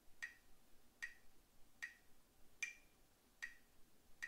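Metronome ticking faintly and steadily, a click a little under every second (about 75 beats a minute).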